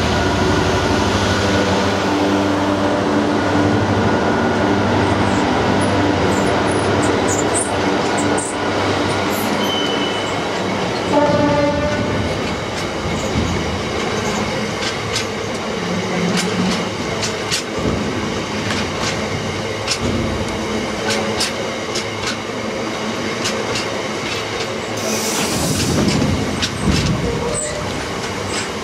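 A Class 66 diesel locomotive passes, its two-stroke V12 engine running with a steady hum for the first ten seconds or so. A brief high tone sounds about eleven seconds in. After that, a string of bogie hopper wagons rolls by with repeated clicks of wheels over the rail joints.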